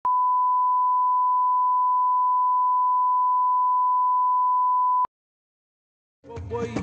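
Steady 1 kHz reference test tone of a bars-and-tone leader, held at one pitch and cutting off abruptly with a click about five seconds in. After a second of silence, music starts near the end.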